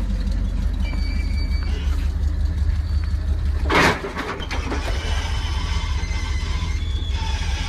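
Heavy work truck's engine running steadily with a deep rumble, cut through about four seconds in by one short, loud hiss.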